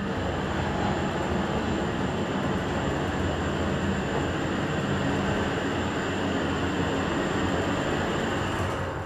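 ThyssenKrupp TIME machine-room-less traction elevator heard from inside the cab as the car travels upward: a steady low hum with the noise of the ride, fading near the end as the car slows to a stop.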